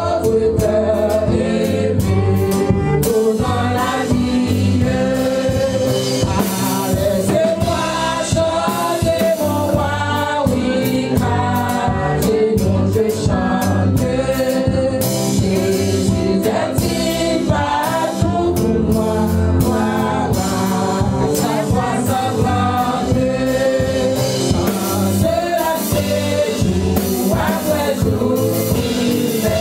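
Women's praise team singing a gospel worship song together into microphones, over accompaniment with a steady beat.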